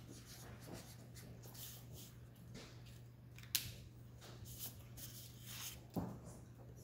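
Faint crinkling and rustling of paper fast-food wrappers handled while eating, with a couple of sharp clicks about three and a half and six seconds in.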